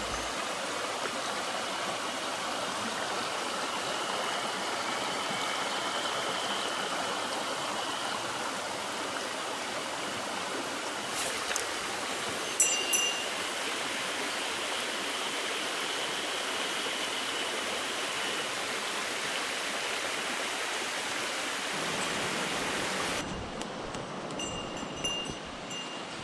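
Small mountain stream running steadily. A little bell tinkles briefly about halfway through and a few times near the end.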